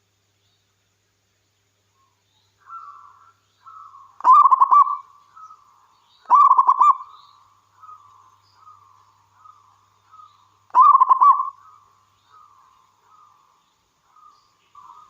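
Zebra dove (perkutut) singing: a run of soft, short cooing notes with three loud, trilled coos about four, six and eleven seconds in.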